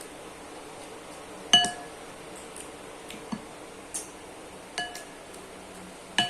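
Eating utensil clinking against a bowl: about five separate taps, some leaving a short ring, the loudest about one and a half seconds in.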